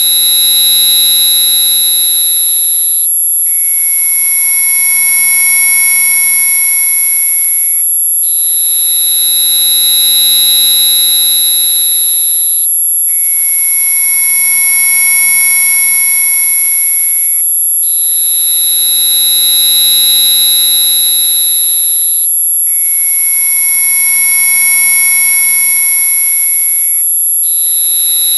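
Synthesized mosquito-repellent tone track: a shrill electronic chord of steady high-pitched tones that switches to a different set of pitches about every five seconds, with a short break at each change.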